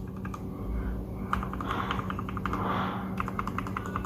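Keys of a Royal Kludge G68 mechanical keyboard being typed, on stock switches that have just been lubed: a few clicks, then a quick dense run of keystrokes from about a second in.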